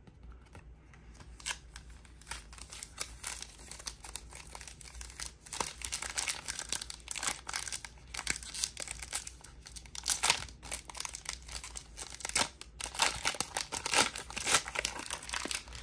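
Foil wrapper of a Topps trading-card pack being torn open and crinkled by hand: irregular crackling and tearing, busier and louder in the second half.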